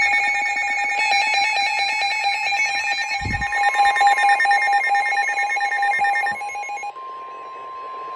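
Several NOAA weather radios sounding their alert alarms: rapid electronic beeping with warbling high overtones. The steady 1050 Hz NOAA warning alarm tone comes in about three seconds in, along with a soft low thump. The beeping stops about a second before the end, leaving the warning tone alone.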